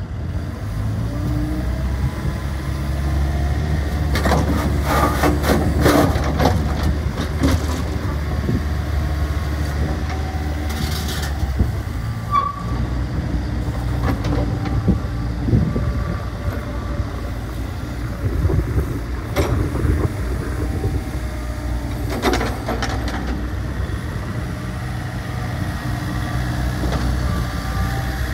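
Takeuchi midi excavator's diesel engine running steadily while the boom, arm and bucket are worked and the upper structure swings, with sharp clanks and knocks now and then. The engine's low rumble is heavier for about the first half, then eases.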